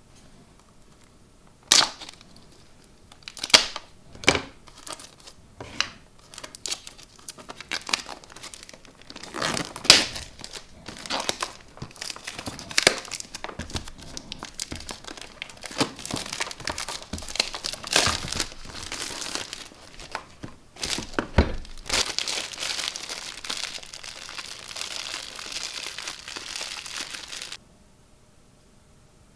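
Clear plastic shrink-wrap being torn and peeled off a cardboard product box by hand: irregular sharp crinkles and crackles starting about two seconds in, then about five seconds of steady crinkling near the end that stops suddenly.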